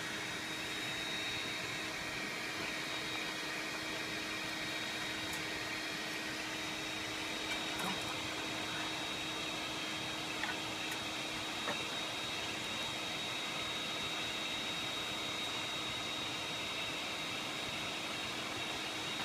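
Small electric blower feeding air into a coal-fired furnace, running with a steady whooshing rush and a constant hum. A few faint clicks come in the middle.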